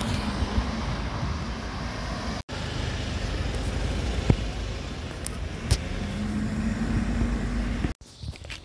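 Street traffic: a steady rumble of passing cars with an engine hum in the second half. The noise drops out sharply twice, and after the second break it is much quieter.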